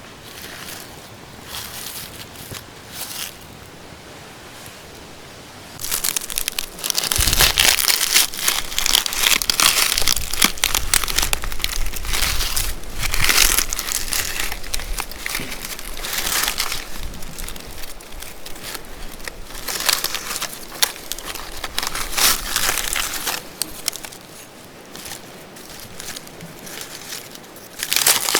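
Crinkling and rustling handling noise in irregular bursts, sparse at first and much busier and louder from about six seconds in.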